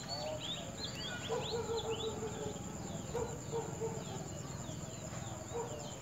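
High, thin chirps of nestlings begging as the adult bird feeds them at the nest. They come in quick bursts, thickest in the first couple of seconds. Under them, a lower call repeats in short series.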